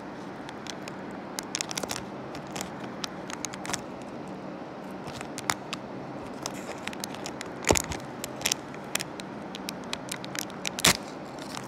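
Foil-laminated sachet being handled and torn open by hand: repeated crinkles and crackles of the foil, with two sharper, louder crackles in the second half.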